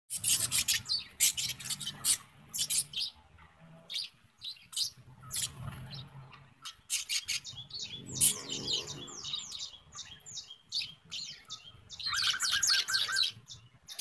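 Budgerigars chirping in a steady stream of short, high calls, with a fast chattering run of calls near the end.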